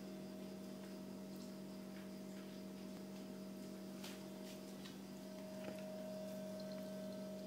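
Faint wet licking and mouthing from a Shetland sheepdog working at a whole raw piglet, with a few soft clicks, over a steady low hum that is the loudest thing throughout.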